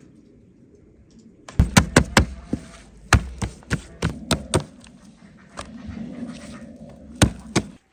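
A series of sharp knocks or chops, about a dozen irregular strikes, starting about a second and a half in and cutting off suddenly near the end.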